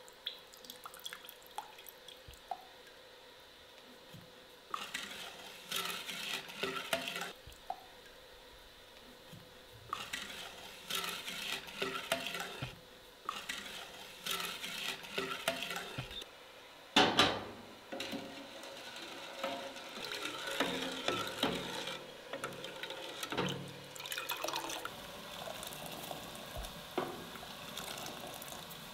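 Intermittent splashing and running water, broken up by small clicks and a few louder knocks.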